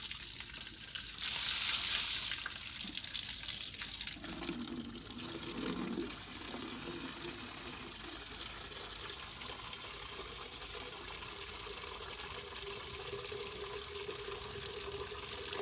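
Water splashing and running as freshly caught fish are washed, with a louder gush of water about a second in.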